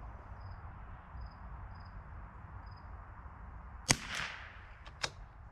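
A single shot from a Ruger Precision Rimfire .22LR bolt-action rifle about four seconds in, a sharp report with a short echo. It is followed about a second later by two light clicks.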